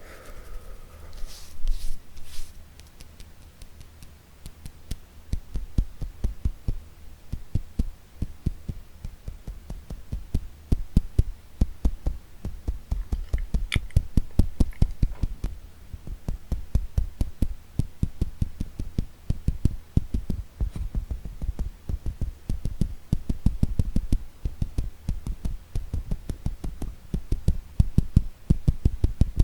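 Fingertips tapping fast and unevenly on an object, a dense run of dull, low knocks that comes in louder clusters.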